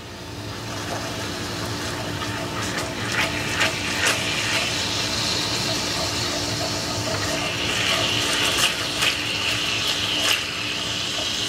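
Stock-and-Dijon pan sauce sizzling in a skillet while a spoon stirs it, with scattered clicks and scrapes of the spoon against the pan. The sizzle builds over the first second.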